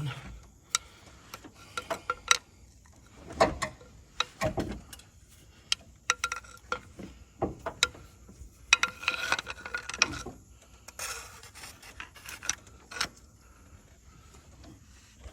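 Hand tools and metal valvetrain parts clicking, clinking and scraping in irregular bursts while a rocker arm is worked off the engine's exposed valvetrain, engine not running.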